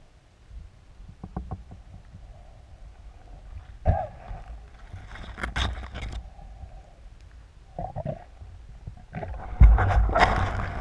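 Underwater handling and water noise picked up by a camera mounted on a speargun: scattered knocks and clicks, with bursts of rushing water noise. The loudest burst comes near the end.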